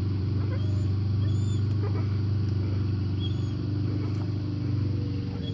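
Steady low mechanical hum, like a motor running without pause, with a few faint high chirps over it.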